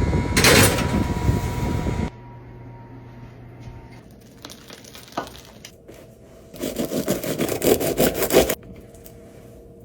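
Crusty baked focaccia crackling and scraping as it is broken into, in two bouts of about two seconds each: one at the start and one about seven seconds in.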